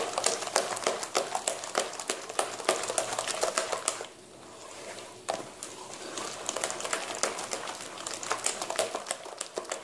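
Thick urad dal batter being beaten by hand in a steel bowl: a quick run of wet slapping strokes, with a short pause about four seconds in. The batter is being whipped to aerate it so that it rises.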